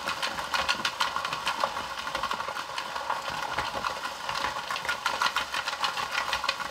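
Hand-cranked toy ice cream maker turning steadily: ice cubes rattle and clatter in the plastic bowl around the spinning aluminum cake pan, a continuous dense run of small clicks.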